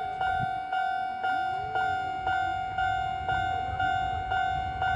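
Japanese railway level-crossing warning alarm ringing, an even electronic ding repeating about twice a second, with the low rumble of an approaching Kobe Electric Railway train growing near the end.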